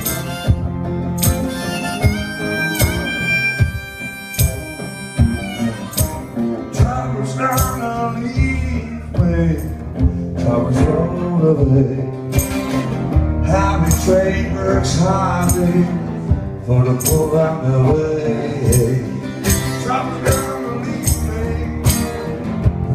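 Harmonica solo played from a neck rack over strummed acoustic guitar in a blues-rock song, with sharp percussive hits keeping a steady beat. The harmonica holds long notes at first, then plays bending, sliding phrases.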